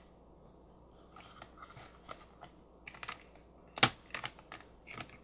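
Small plastic clicks and taps as a toy castle's clear plastic gate is handled and a small plastic doll is moved through it, with one sharper click a little under four seconds in.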